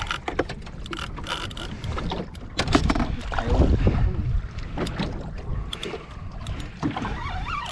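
Knocks and clatter of handling aboard a small boat, with a low buffeting rumble about three seconds in that is the loudest part.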